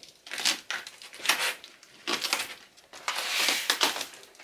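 A postal package being opened by hand: packaging tearing and crinkling in short rustling bursts, with a longer rustle about three seconds in.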